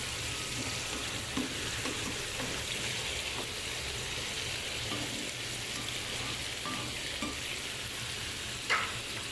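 Salmon fillets frying in a nonstick pan on high heat, a steady sizzle, with one brief knock near the end.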